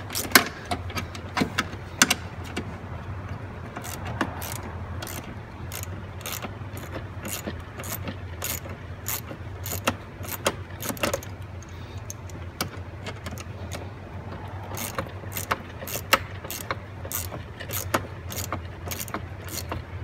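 Small ratchet clicking in repeated short runs as a 10 mm bolt holding a seat belt retractor is turned out, over a steady low hum.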